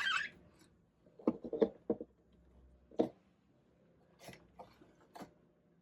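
A short rubbing wipe, then a scatter of light taps and clicks as stamping tools are handled and set down on a tabletop; the louder taps fall in the first half, with softer ones near the end.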